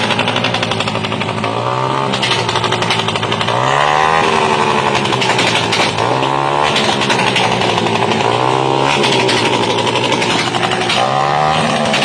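A vehicle engine with a loud, rough exhaust revved repeatedly: about five blips of the throttle, each rising in pitch and settling back, roughly every two and a half seconds.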